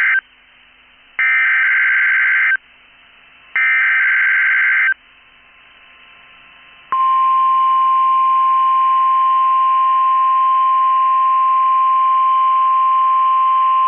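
NOAA Weather Radio alert signals. The end of one SAME header burst is followed by two more short warbling digital data bursts, with radio hiss in the gaps. About seven seconds in, the steady 1050 Hz weather radio alert tone comes on and holds, sent as part of the weekly tone-alert test.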